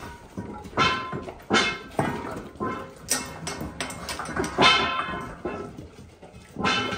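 Rottweilers barking in short, repeated barks, one every half second to a second, the loudest about two thirds of the way in.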